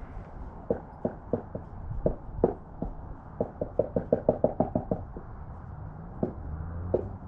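Light taps on windshield glass at a chip under repair: scattered single taps, then a quick run of about a dozen at roughly seven a second, then two more.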